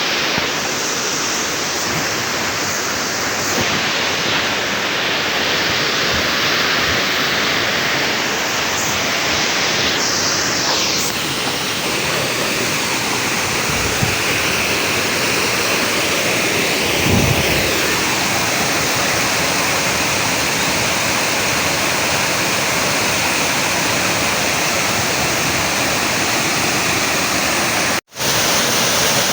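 Waterfall: a steady, loud rush of falling water. It cuts out for an instant near the end.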